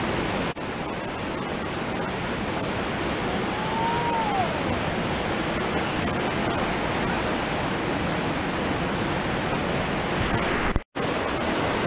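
Whitewater rapids rushing steadily, a loud even wash of water. A faint short tone rises and falls about four seconds in, and the sound cuts out for an instant near the end.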